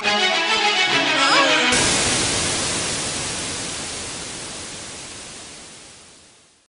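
Background music ending: a short musical passage, then about two seconds in a loud final crash of noise that rings and slowly fades out to silence.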